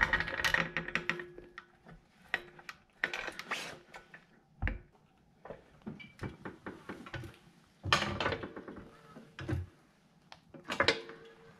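Pittsburgh hydraulic floor jack being pumped to lift a car: its handle and pump mechanism click and clank in strokes about every second and a half, with a faint squeak and one low thump.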